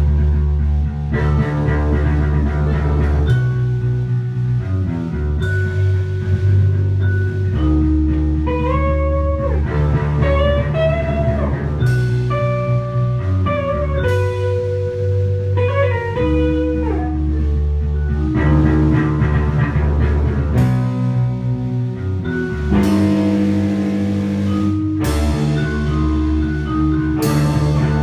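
A small band playing live: drum kit, electric guitar and held bass notes, with a sliding lead line in the middle and several cymbal crashes, most of them near the end.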